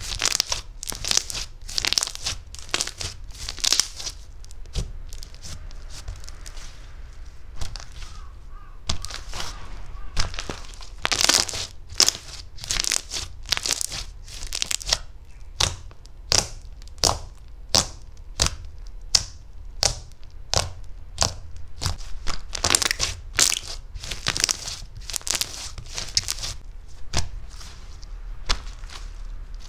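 Soft butter slime being pressed and squished by hand, making a run of short, sticky clicks and pops about one or two a second, with a quieter pause about a quarter of the way in.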